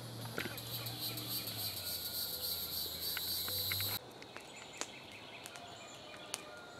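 Insects buzzing in a steady, high-pitched, pulsing chorus, which cuts off abruptly about four seconds in to a quieter background with a few sharp pops from a campfire.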